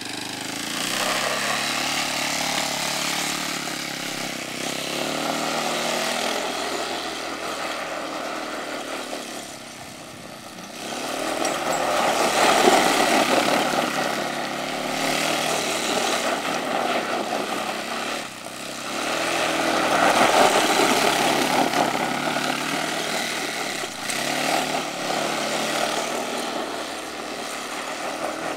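Hammerhead 250cc go-kart engine revving hard and easing off in repeated surges as the kart drifts on loose gravel. It is loudest about twelve and twenty seconds in.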